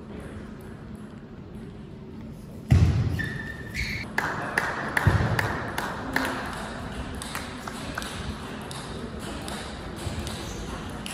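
Table tennis ball clicking as it is bounced on the table and bat before a serve, with a sudden loud thud about three seconds in, followed by a short high squeak.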